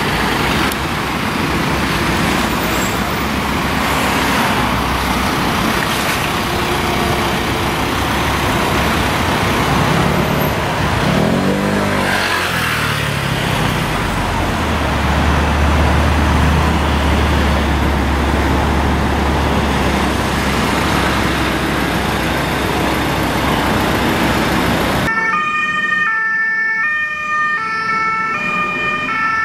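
Road traffic from a passing police convoy: vehicle engines and tyre noise, with an engine rising in pitch as it passes about twelve seconds in, then a deep steady engine hum. Near the end a German police two-tone siren (Martinshorn) sounds, alternating between two pitches.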